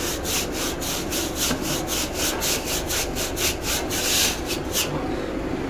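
Broom bristles scrubbing the finned metal condenser coil of an ice-cream freezer in brisk back-and-forth strokes, about four to five a second, stopping about five seconds in. This is the condenser being cleaned of dirt.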